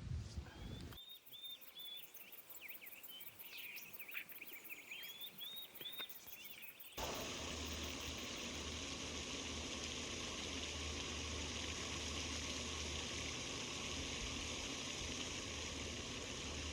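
A songbird singing in short, repeated chirping phrases over quiet outdoor air. About seven seconds in, an abrupt cut brings in a steady outdoor noise with a low hum underneath.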